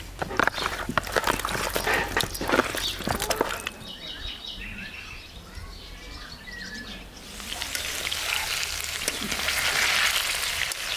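Wet squelching and clicking as hands knead marinated chicken pieces in a plastic bowl, then a quieter stretch with faint bird chirps. From about seven seconds in, a steady sizzle of potato wedges frying in hot oil in a pan, growing louder near the end.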